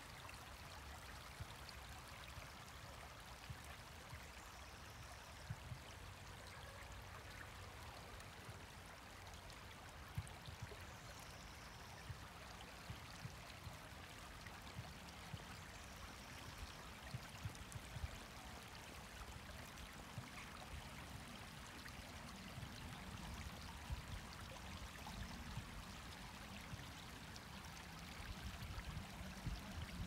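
Small shallow brook running over stones: a faint, steady rush and trickle of water. Irregular low rumbles on the microphone grow stronger near the end.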